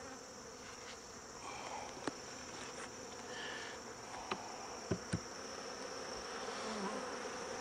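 Honeybees buzzing steadily over an open hive as frames covered in bees are handled, with a few sharp wooden clicks and knocks about two, four and five seconds in as a frame is set back down into the box.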